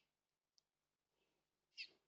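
A short, high bird call near the end, one of a series about two seconds apart, with a faint click about half a second in.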